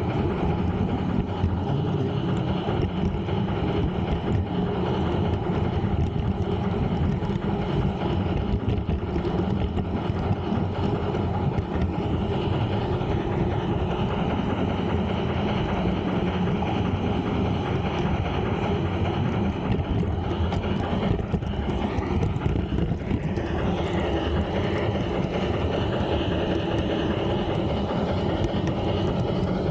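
LGB G-scale model train of a Saxon IV K narrow-gauge steam locomotive rolling steadily along garden-railway track, heard close up from a camera riding on the train: a continuous rumbling clatter of small wheels on the rails.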